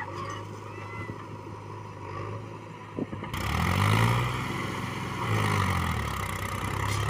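Tractor diesel engine labouring and revving under load as it hauls a trolley loaded with soil up a dirt slope; the engine pitch climbs sharply about halfway through, eases, and climbs again, with a single sharp click just before the first climb.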